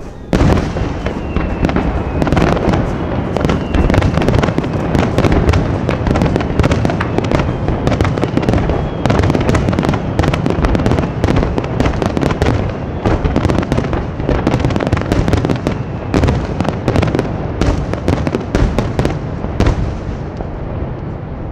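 Rapid barrage of large aerial firework shells bursting: a dense, loud stream of overlapping booms and cracks that starts abruptly and thins out near the end.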